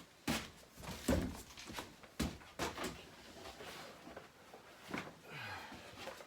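Scattered knocks and clunks of objects being handled and set down, with a short low falling sound about five seconds in.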